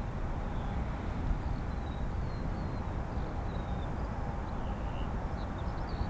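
Strong, gusty wind buffeting the microphone with a low, uneven rumble, with a few faint bird chirps above it.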